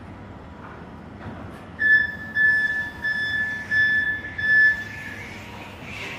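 Flexi articulated forklift's warning beeper sounding about five high, even beeps in quick succession as the truck manoeuvres, over a low steady hum.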